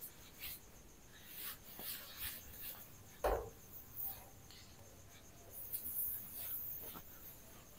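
Short squeaking and rubbing strokes on a whiteboard, with a louder knock a few seconds in.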